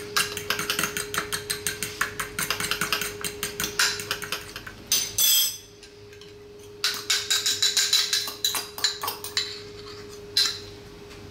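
A fork whisking a creamy dressing in a small ceramic bowl, its tines clicking rapidly against the bowl, stopping about five seconds in. Then sparser clinks of the fork and bowls as the dressing is tipped over potatoes, over a faint steady hum.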